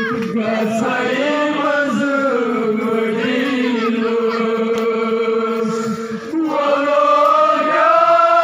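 Men's voices chanting together, a Shia mourning chant with long held notes; about six seconds in, a new, louder phrase begins.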